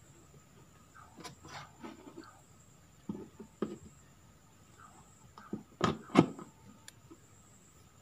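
Handling knocks and rubbing as a mains plug is pushed into a power strip socket, ending in two sharp knocks close together about six seconds in, the loudest.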